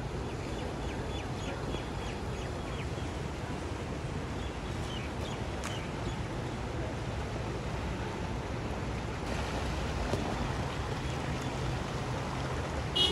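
Steady wash of water and engine rumble from vehicles wading through a flooded street. A short car-horn toot sounds at the very end.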